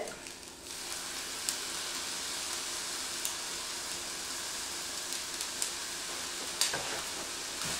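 Shredded cabbage and brown rice sizzling in a frying pan: a steady hiss that picks up about a second in, with a few faint ticks.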